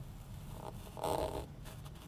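Soft, crumbly squish of a molded tower of kinetic sand slumping and spreading out, with the loudest rasp about a second in.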